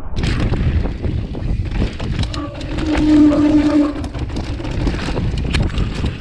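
Mountain bike riding fast down a dirt trail: wind buffeting the action camera's microphone over the rumble of tyres on dirt and loose stones, with frequent sharp clicks and rattles from the bike. A short humming tone sounds between about two and four seconds in.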